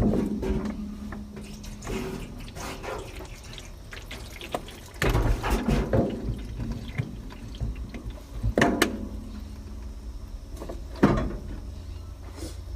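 A truck's windshield being washed by hand: water splashing and wet scrubbing across the glass in uneven strokes, over a steady low rumble.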